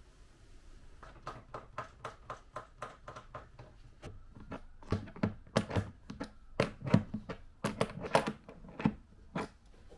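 A wrench clicking on the nut of a toilet's floor bolt as the toilet is fastened down, a string of sharp metallic clicks a few a second, louder and more irregular in the second half.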